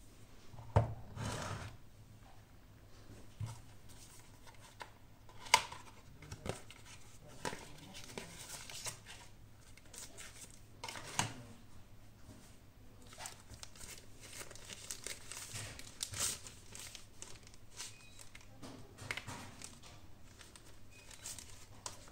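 Smartphone packaging being handled: crinkling and tearing, with scattered sharp clicks and taps, the loudest about a second in and again about five seconds in.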